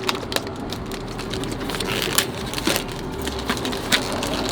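Drink packaging being handled and opened while restocking a vending machine: crinkling and crackling with many scattered short clicks and knocks, over a steady hum.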